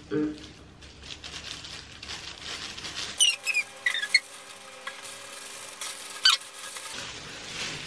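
Thin plastic gloves crinkling and squelching as wet hair dye is rubbed into hair. Around the middle come several short, high squeaks that fall in pitch, over a faint steady hum.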